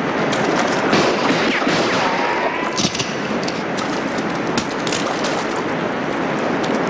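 Waterfall rushing steadily, with a few faint sharp clicks over it.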